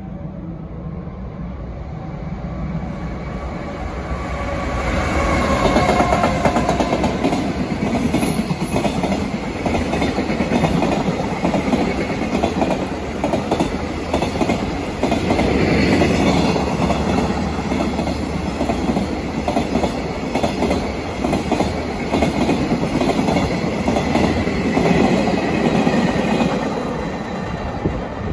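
JR Freight container train hauled by EF210 electric locomotives passing at speed, its wagon wheels clattering steadily over the rail joints. The noise builds over the first few seconds and eases off near the end.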